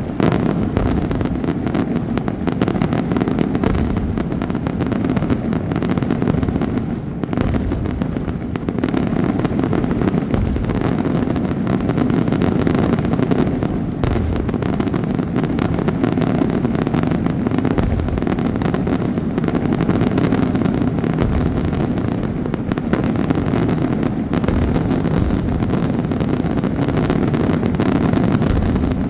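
Daytime fireworks display going off as a dense, continuous barrage, with bangs coming so fast they run together into one loud, unbroken noise.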